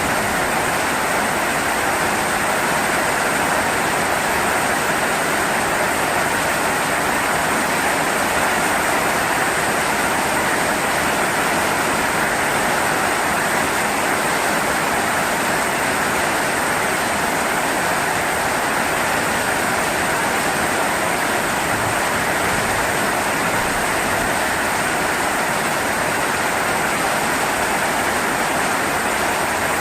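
Heavy rain falling, a steady, even hiss with no break or thunder clap.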